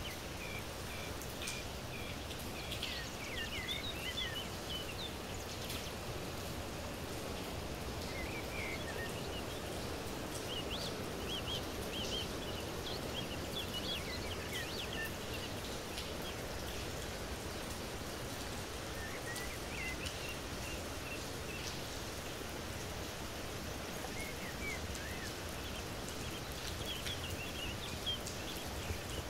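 Small birds chirping in quick, high-pitched bursts, on and off, over a steady outdoor hiss of rain.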